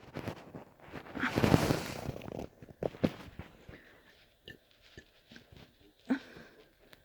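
Wet digestive bodily noises from a stomach upset by castor oil: a loud sputtering burst about a second in, followed by a few sharp pops and small scattered gurgling clicks.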